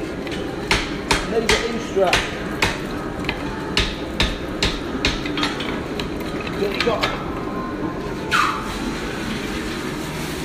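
Blacksmith's hand hammer striking red-hot iron on an anvil while forging a hinge strap, each blow a sharp ringing clang. A quick run of blows comes about two or three a second for the first five seconds or so, then a few scattered strikes, one louder than the rest about eight seconds in.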